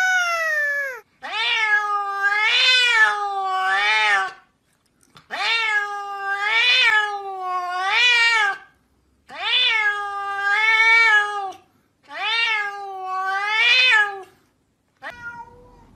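Domestic cats meowing: about five long, drawn-out meows in a row, each a couple of seconds long with a wavering pitch, the first one falling.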